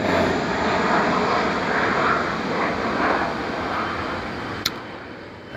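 Airplane flying past: a steady rushing engine noise, loudest at the start and slowly fading away. A short sharp click comes near the end.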